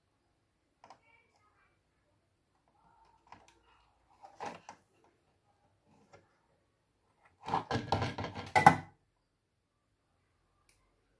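Hard objects being handled on a workbench: a few light clicks and a short knock, then about a second and a half of clattering and rattling in the second half, the loudest part.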